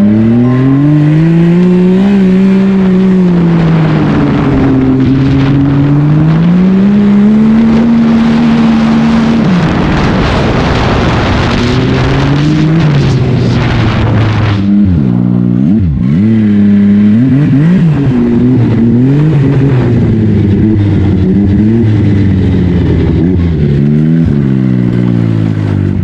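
Yamaha Sidewinder snowmobile's turbocharged three-cylinder engine under way, its revs rising and falling as the throttle is worked. There are quick throttle blips about halfway through and a climb in revs near the end.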